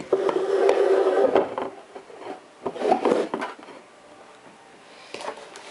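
Cardboard board-game box lid being slid off and handled: a long scraping rub of cardboard for about a second and a half, then a shorter rub about three seconds in.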